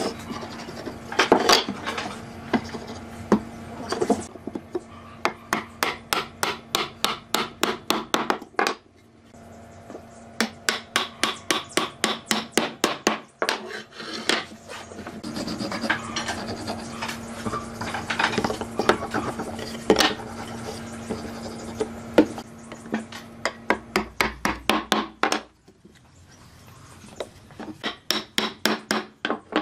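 Wooden mallet knocking a glued pine table-leg joint together, a quick series of taps in several runs with short pauses between.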